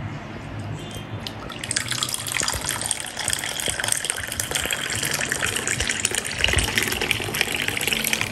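Frothy coffee poured in a steady stream from a thermos into a glass cup, with a fizzing, bubbling splash as the foam builds. It starts about two seconds in and stops sharply near the end. The coffee has just been shaken in the thermos to raise a foam.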